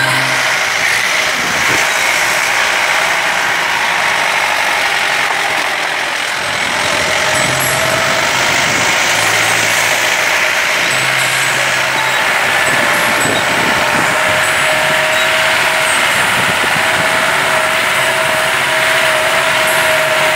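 Motor vehicle engine and road noise heard from inside the cabin while driving, a loud steady rumble and rush with a thin steady whine joining about a third of the way in.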